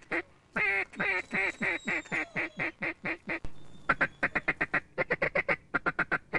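Duck quacking: a steady series of loud quacks, each falling in pitch, then a faster run of short, quick quacks from about four seconds in.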